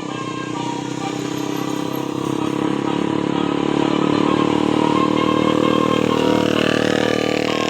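A bus's diesel engine running steadily with a regular low throb, growing louder over the first few seconds as it draws near.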